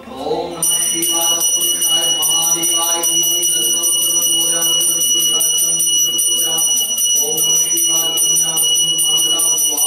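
A puja hand bell (ghanta) rung rapidly and continuously, a steady high ring made of many fast strokes, starting about half a second in.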